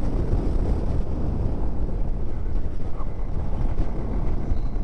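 Steady wind rumble on the microphone of a motorcycle riding at speed, mixed with the bike's running and road noise.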